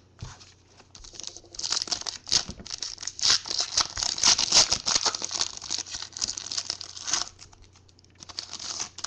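Foil wrapper of a football trading card pack being torn open and crinkled by hand: dense crackling that stops about seven seconds in, then a shorter crinkle near the end.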